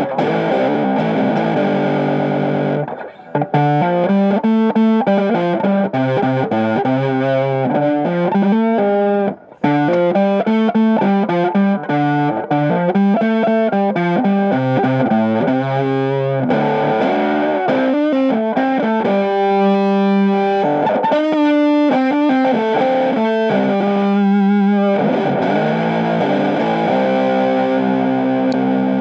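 Gretsch Tennessee Rose hollow-body electric guitar played through a Dynacord MV17 amplifier: a run of chords and single notes, with two short breaks about three and nine seconds in.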